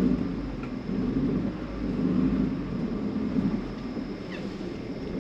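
A small van's engine and drivetrain heard from inside the cab, running at low speed while it is manoeuvred into a parking space: a steady low rumble that rises and falls a little.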